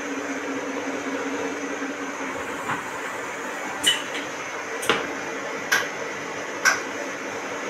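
Steady hum of workshop machinery, with a series of short, sharp clicks about a second apart as green rubber mould blocks are set down and handled on a wooden bench.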